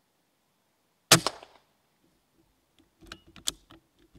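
A single air rifle shot about a second in: one sharp crack with a short ringing tail, the shot that drops the rat in the sights. About two seconds later comes a quick run of lighter clicks and knocks, one louder than the rest, over a faint steady hum.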